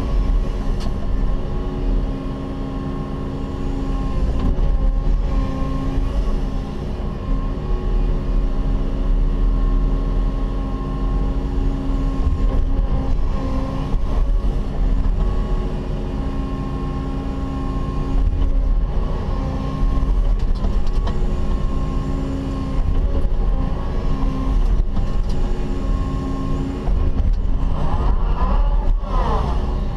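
Caterpillar 316E excavator's diesel engine running at full throttle in economy mode, heard from inside the closed cab, a steady drone that swells and eases a little as the bucket digs.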